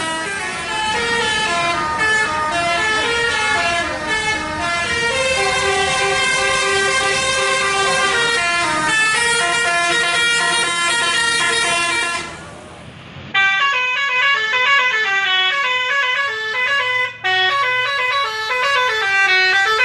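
Indonesian bus 'telolet' horns, the multi-tone musical air horns, playing quick tunes of stepped notes. About twelve seconds in they drop away briefly, then start again.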